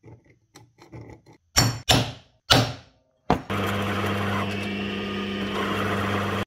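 Faint clicks, then three loud knocks a fraction of a second apart as workshop parts are handled. About three and a half seconds in, an electric motor starts and runs steadily with a low hum, and it cuts off suddenly.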